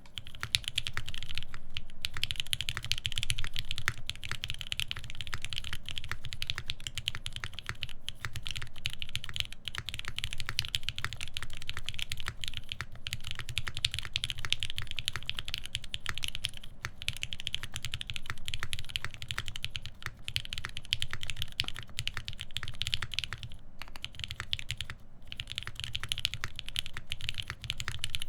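Continuous fast typing on a SINGA Unikorn R2.1 mechanical keyboard with Krytox 205g0-lubed Lavender switches, a full FR-4 plate and GMK keycaps: a dense stream of keystrokes with a few brief pauses.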